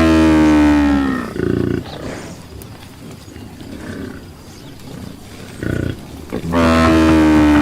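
Buffalo mooing: two long, loud bellowing moos, one at the start and one near the end, each sliding down in pitch as it ends, with shorter, lower calls in between.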